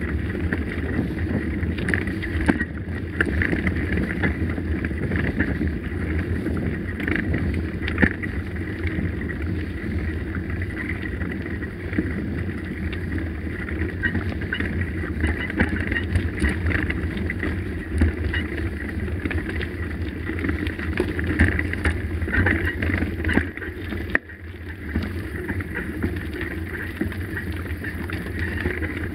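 Mountain bike rolling over a dirt and gravel track: a steady rumble of tyres on the ground with many small rattles and knocks from the bike, and wind buffeting the microphone. It dips briefly in loudness near the end.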